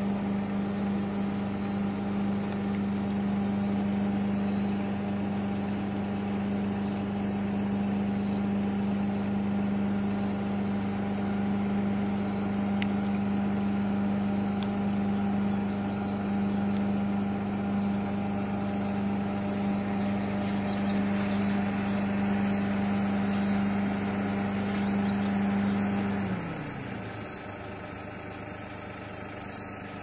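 A steady motor hum, one low tone with overtones, that winds down in pitch and stops about 26 seconds in. Behind it, a faint high chirp repeats about once a second.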